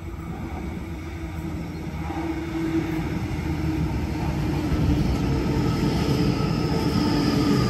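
Sydney Trains double-deck electric passenger train pulling in along the platform: wheels rumbling on the rails under a whine of several steady tones, growing louder as it comes alongside.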